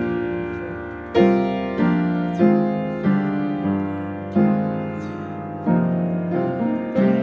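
Upright piano playing a slow chordal hymn accompaniment, chords struck about once a second and left to ring and fade before the next.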